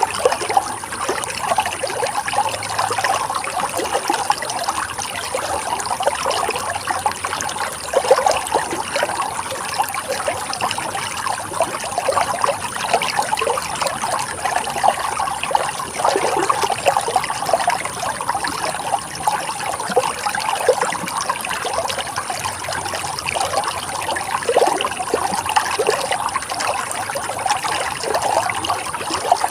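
Running water trickling and splashing steadily over stones, a continuous babbling with many small bubbling splashes.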